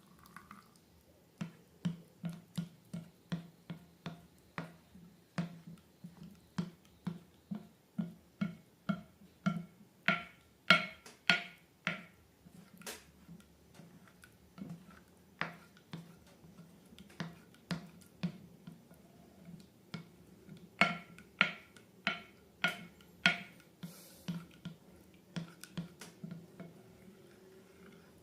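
Slime being pressed and worked by hand, making a steady run of sharp clicking pops about two a second, stronger in two stretches.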